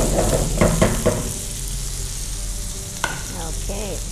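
Mutton pieces frying in hot oil with dried red and green chillies, sizzling steadily, with a spatula stirring and scraping them in the pan for the first second or so. A single sharp clink about three seconds in.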